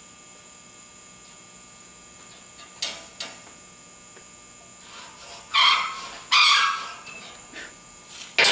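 Two short scrapes, about half a second each and close together, from drawing lines along a square on a steel plate. They are preceded by a couple of light clicks and followed by a sharp tap near the end.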